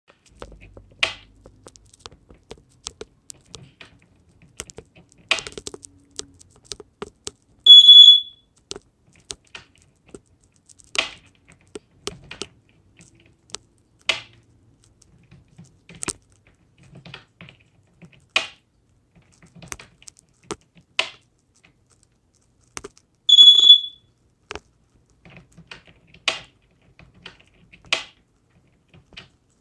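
A wall light switch being flicked over and over, giving sharp clicks every two to three seconds. Twice there is a loud, steady high beep of about half a second, like a smoke-alarm chirp.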